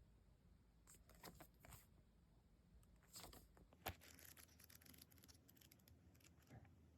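Faint rustling and small clicks from packaging or books being handled, with one sharper click about four seconds in.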